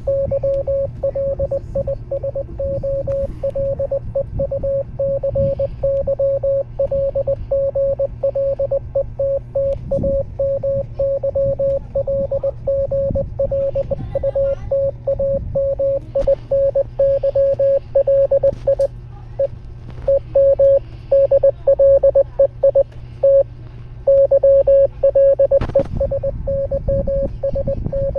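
Morse code: a single steady beep tone keyed on and off in rapid dots and dashes, with a few brief pauses, over a low steady hum.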